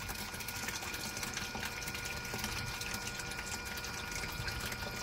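Small electric glycol exchange pump running steadily in a bucket of glycol, a low, even hum with a few thin steady tones, over liquid running through the hoses. Fresh glycol is being pumped into an Alde hydronic heating system while the old glycol drains out.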